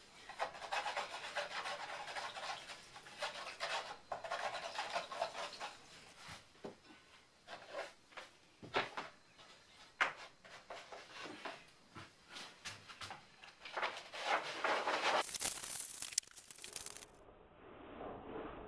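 Scratchy rubbing and scraping noises in uneven bursts, from paper and painting gear being handled against a surface, with a few sharp knocks and clicks; the loudest stretch of scraping comes near the end.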